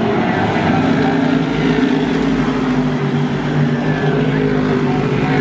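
A field of modified race cars' V8 engines running together as the pack circles the oval, a steady, loud drone.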